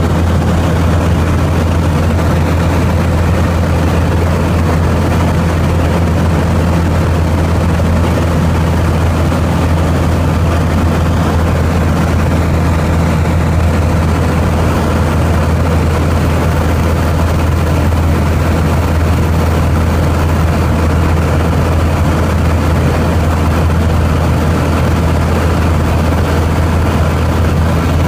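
A light airplane's piston engine and propeller running steadily in cruising flight, heard from inside the cabin as a loud, even, low drone with no change in pitch.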